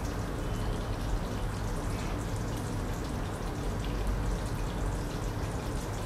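Pork and liver stew with vinegar simmering in a pot on a gas stove: a steady soft bubbling and sizzling with faint scattered pops, over a steady low hum.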